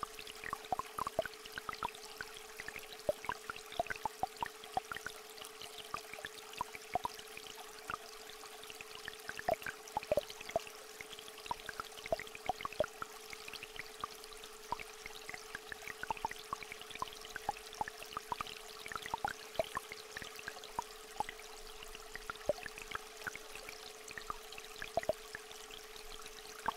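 A steady electronic tone held at a single mid pitch, over a small stream trickling and frequent sharp drops of rain and water dripping.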